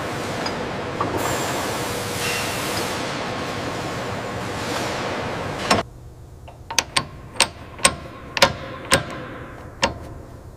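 A steady rush of workshop noise that cuts off about six seconds in with a sharp knock. It gives way to a string of separate metallic clicks and clinks, roughly two a second, from a wrench working a nut on a steel fitting.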